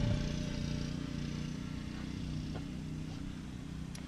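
Motor scooter engine running steadily with a low hum, gradually getting a little quieter.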